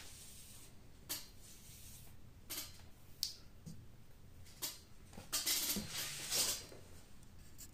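Faint handling noise on a wooden worktable: a few scattered light clicks and knocks, then a longer stretch of rustling in the second half as a hand gathers up the leather lace cord.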